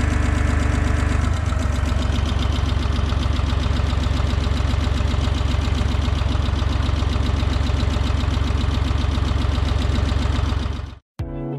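Holder A45 tractor's diesel engine running steadily at low revs, settling slightly lower about a second in, then cut off abruptly near the end.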